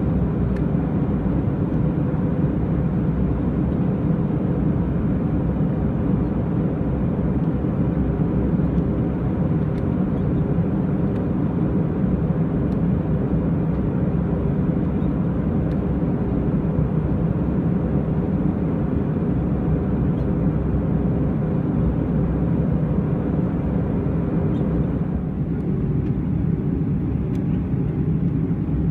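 Steady cabin noise inside an Airbus A320 in descent: an even rumble of airflow and engines, strongest in the low range, with a faint steady hum. The higher hiss eases slightly near the end.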